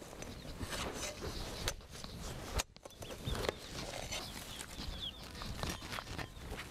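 A spoon clicking and scraping against a bowl in small, irregular knocks while someone eats, with birds chirping in the background.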